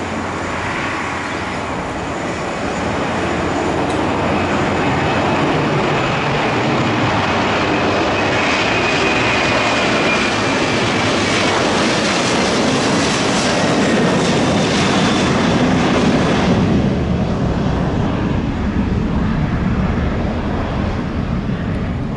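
Jet airliner engines running loud and close, with a faint whine in the hiss. The sound swells over the first few seconds, then the high hiss falls away about sixteen seconds in, leaving a low rumble.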